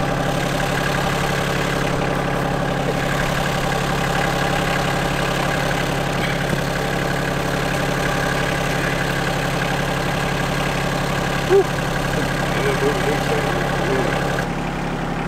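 John Deere 2025R compact tractor's three-cylinder diesel engine idling steadily, with a few brief, sharper sounds over it near the end.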